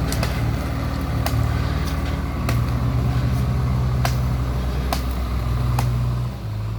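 Heavy diesel engines running steadily as a backhoe loader pushes a loaded tractor, the engine note swelling a little about two and a half seconds in. Sharp clicks sound roughly once a second over the engine.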